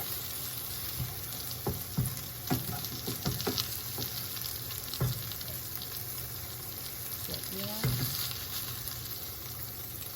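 Green bean and egg pancake sizzling in hot oil in a frying pan, with a steady hiss. A spatula knocks and scrapes against the pan several times as the pancake is cut into quarters.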